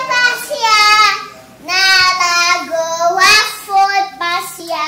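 A young girl singing a children's song in a high voice, in short phrases with held, sliding notes and brief pauses for breath.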